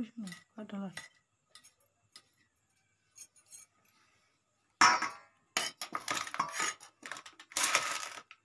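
Stainless steel bowl and knife clattering and scraping as raw chicken pieces are handled, in a run of loud, noisy bursts over the second half, after a few faint clicks. A brief voice is heard at the very start.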